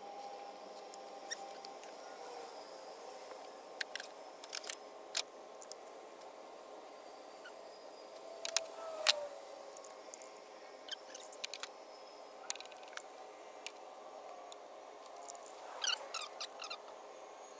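Scattered metallic clicks and knocks of hand tools (socket, extension and U-joint on a ratchet) being fitted and worked on a spark plug deep in the engine bay; the loudest knocks come about nine seconds in, with a quick run of clicks near the end.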